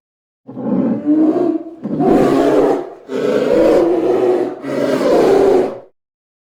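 An animal roaring: four loud, rough calls of about a second each with short breaks between them.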